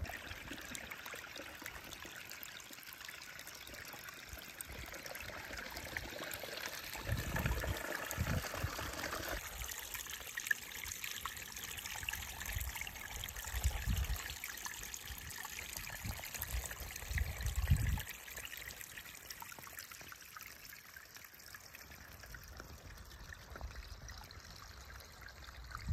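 Rainwater runoff trickling and running along a dug drainage channel and over rocks into a pool, a steady watery hiss. A few brief low rumbles cut in about a third of the way through and again about two-thirds through.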